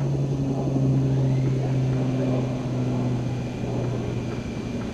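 Firefighting helicopter flying over a wildfire during a water drop: a steady rotor and engine hum with a fine chop, easing off slightly near the end.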